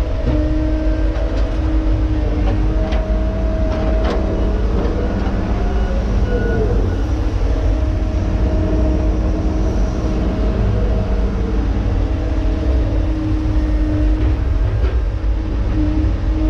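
Tigercat knuckleboom log loader's diesel engine and hydraulics running steadily under load, heard from inside the cab: a deep rumble with a steady hydraulic whine that bends briefly in pitch about six seconds in as the loader swings. A few sharp clicks in the first four seconds.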